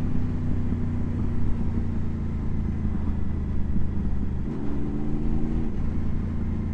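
Motorcycle engine running at a steady note. About four and a half seconds in, a second vehicle's engine sounds for about a second, then fades.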